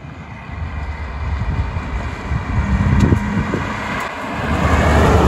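Tatra 603's air-cooled V8 running as the car drives along the road towards the listener, getting louder as it approaches near the end.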